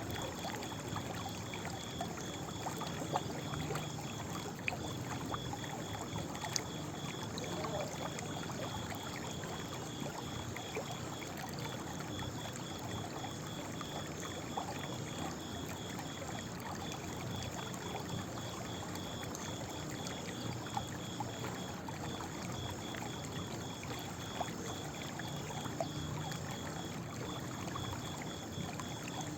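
Running water flowing steadily, with a high, evenly pulsed chirping of a night insect going on without a break over it.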